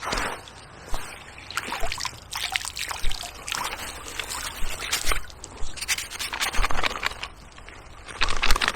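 Irregular splashing and sloshing of river water as a caught chub is lowered into the margin and released by hand, with rubbing and rustling from the handling.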